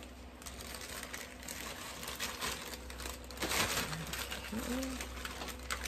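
Plastic and foil food packets crinkling as they are handled and packed into a pouch, loudest about three and a half seconds in.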